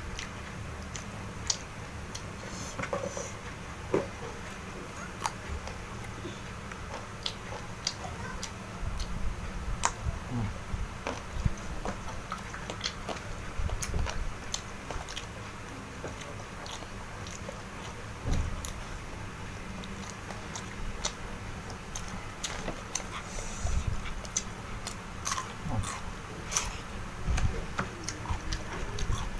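A person eating close to the microphone: chewing and biting, with many short sharp clicks and a few dull thumps scattered irregularly throughout.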